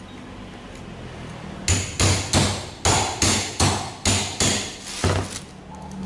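Hammer striking the handle of an open-end wrench about ten times, roughly three blows a second, each a sharp metal-on-metal hit with a short ring. The blows are shocking loose a seized, very tight part of a hand-turned faucet that would not come undone by turning.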